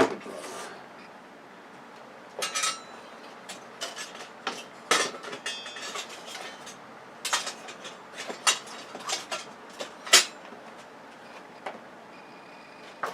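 Small metal scrap parts being handled and dropped into piles: sharp clinks and clatters at irregular intervals, a few with a brief metallic ring.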